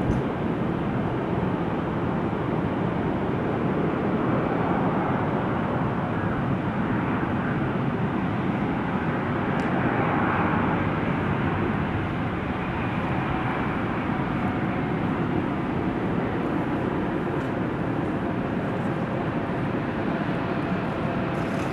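Airliner engines running with a steady, continuous roar that swells slightly about halfway through.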